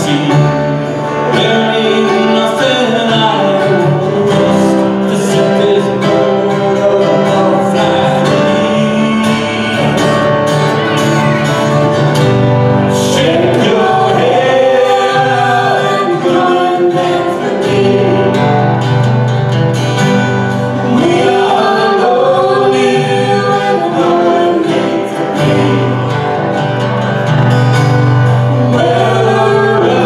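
Live band playing a song: a woman sings lead over guitars and keyboard.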